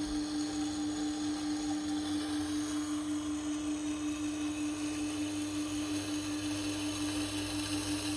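Tormek T-8 wet sharpening machine running with a steady motor hum while a carving axe's bevel is ground against the turning wet stone.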